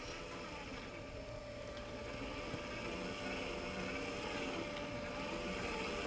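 Electric motors and gearboxes of two scale RC crawler trucks, a Blazer K5 and a Cross RC Demon, whining steadily as they crawl slowly forward over forest ground.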